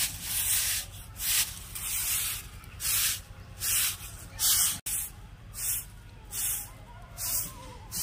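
Fibre brooms sweeping sand and grit across a concrete road, with repeated scratchy swishes a little under one a second.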